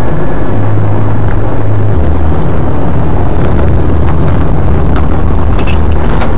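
Car engine and road noise, loud and distorted, with a steady low drone that drops slightly in pitch about two seconds in.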